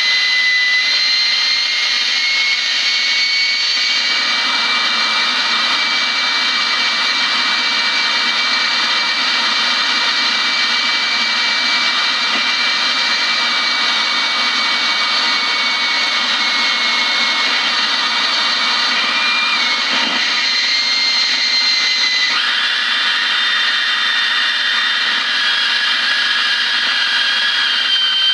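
Electric-guitar noise from a Squier Telecaster run through a handmade effects pedal into a Vox amp: a loud, steady, dense hiss with high whistling feedback-like tones on top. The tones step to a lower pitch about 22 seconds in.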